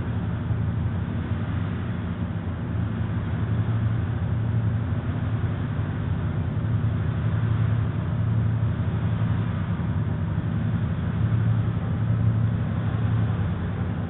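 Steady low motor hum with a slight rise and fall in loudness.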